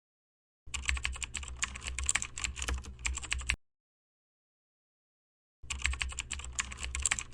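Computer keyboard typing: two runs of rapid keystrokes, the first about three seconds long, then a pause of about two seconds, then a second run.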